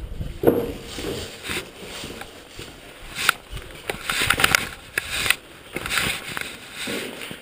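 Footsteps on a gritty concrete floor and the rattle of gear being carried, with irregular scrapes and sharp knocks that cluster about halfway through.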